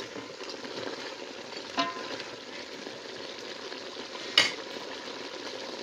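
Mutton pieces frying with a steady sizzle in a metal pot while a steel spoon stirs them, keeping the meat from catching on the bottom. A sharp clink a little after four seconds in.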